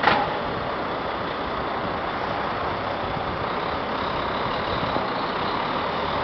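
Heavy lorry's diesel engine running steadily as the truck drives slowly across the lot, after a short sharp burst right at the start.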